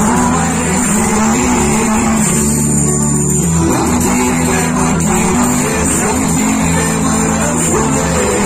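A live band playing amplified pop-rock music through a PA, with guitars and bass, heard from within the audience.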